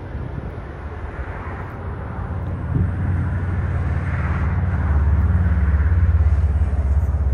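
Twin-engine jet airliner landing, its engine noise swelling into a low rumble that grows loudest over the last few seconds as the jet reaches the runway.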